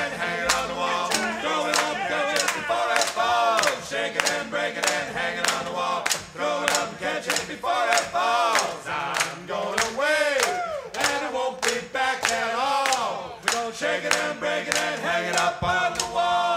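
A group of voices singing over quick, regular, sharp percussive hits, with almost no bass underneath: a vocal section of a Mardi Gras music track.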